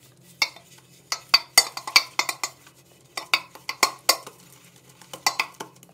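Synthetic shaving brush swirling and tapping shaving cream around a stainless steel bowl to build a lather: quick, uneven clinks and scrapes of the brush against the metal.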